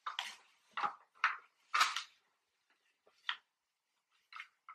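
Baby rocker's tubular frame pieces and plastic hub being handled and fitted together: a string of about seven short, irregular clacks and knocks, the loudest in the first two seconds.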